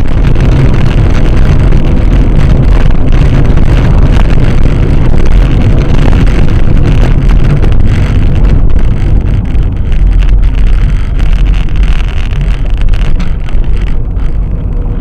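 Car driving on the road, heard through a dashcam inside the cabin: loud, steady road and wind noise with a heavy low end.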